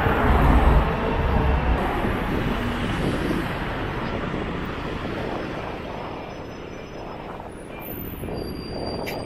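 Street traffic: a heavy vehicle passes close by at the start, and its rumble fades away over several seconds.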